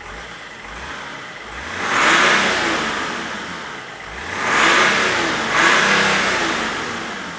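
Stock BMW 330Cd's 3.0-litre straight-six turbodiesel idling, then revved three times: once about two seconds in and twice close together around five seconds in. Each rev rises and falls back to idle.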